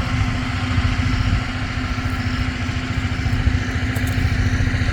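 A generator's engine running steadily, with a constant low hum.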